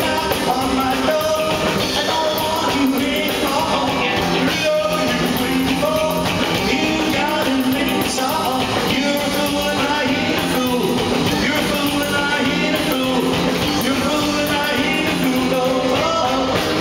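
Live rockabilly band playing: a man singing into the microphone over his own acoustic-electric guitar and an upright bass, with a steady beat.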